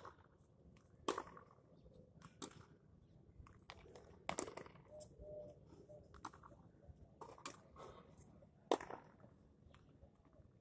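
Tennis balls being struck by a racket and bouncing on a hard court: a series of sharp, irregularly spaced pops, the loudest about a second in, past four seconds, and near nine seconds.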